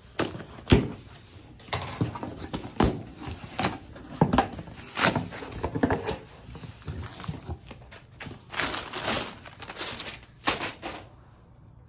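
A cardboard shipping box of books being opened by hand: repeated rustling, scraping and tearing of cardboard and packing, with several sharp knocks and thuds.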